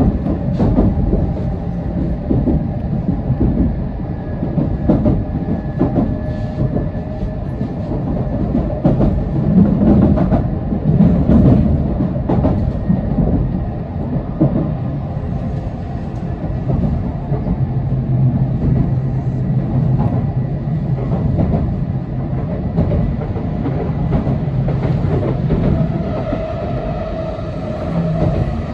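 Running noise of an N700S Shinkansen heard inside the passenger cabin: a steady low rumble of wheels on rail with scattered sharp clicks and a low hum. Near the end a higher hum and hiss join in as another train passes close alongside.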